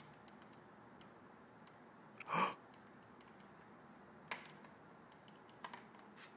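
Faint plastic clicks from a BMW Z4 center air vent's airflow dial and linkage being worked by hand, as a broken plastic clip reinforced with wrapped wire is put to a function check. A brief soft whoosh about two seconds in is the loudest sound, with a sharper click about four seconds in.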